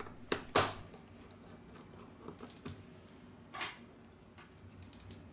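Light clicks and taps of a precision screwdriver working a tiny screw on a phone's motherboard, with two sharper clicks in the first second and a short scrape about three and a half seconds in.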